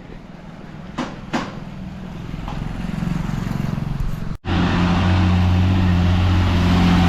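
Two sharp clicks about a second in over street noise, then an abrupt cut about four seconds in to a loud, steady drone of a motor vehicle's engine running close by.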